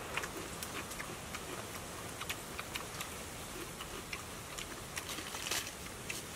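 Eating sounds: scattered soft clicks and smacks as fish and rice are picked apart by hand and chewed, with a sharper click about five and a half seconds in, over a steady background hiss.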